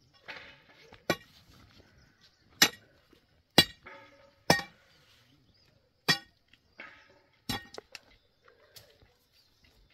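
A metal tool striking rock about six times, roughly a second apart, each blow sharp with a short metallic ring: stone being broken up to cut a road.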